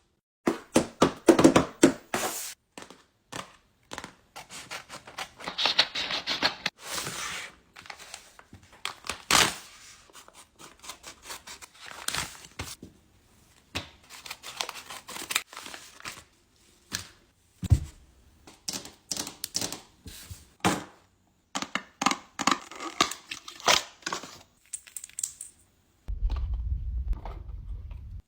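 A paper blind bag being opened by hand: paper tearing and crinkling in short, irregular bursts, with scratches and light taps. A low rumble comes in near the end.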